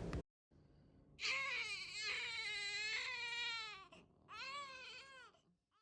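Newborn baby crying: one long wail of nearly three seconds, its pitch rising and falling, then a shorter cry about a second long.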